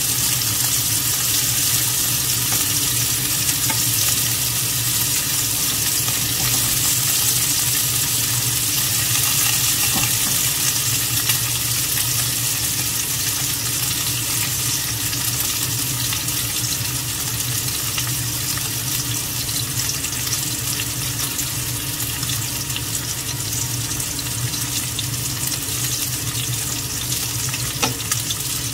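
Slices of pork belly (samgyeopsal) sizzling in oil in a frying pan: a steady hiss of frying fat that eases slightly in the second half, with a couple of faint clicks.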